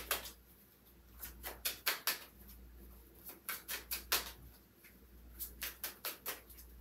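A deck of tarot cards being shuffled by hand: soft clicks of cards slapping together, in quick runs of four or five with short pauses between.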